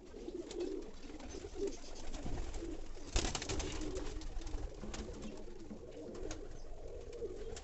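Domestic pigeons cooing, low repeated coos, with a brief clatter about three seconds in.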